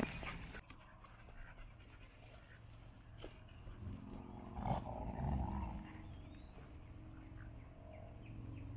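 A dog vocalizing softly for about two seconds, starting about four seconds in, over a low steady background hum.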